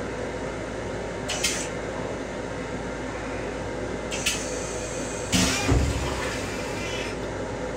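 Stainless-steel train toilet flushing: two short hisses of rinse water, then a louder rushing flush with a low thud about five and a half seconds in, over a steady background rumble.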